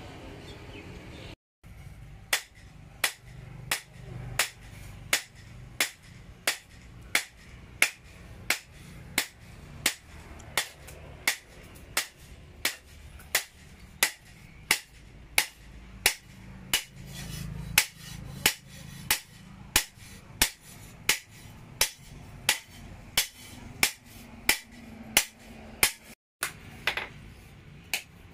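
Hand hammer beating a red-hot steel hoe blade on a post anvil: a long run of sharp, even strikes about one and a half a second, with a short pause near the end. A brief steady hum comes before the hammering begins.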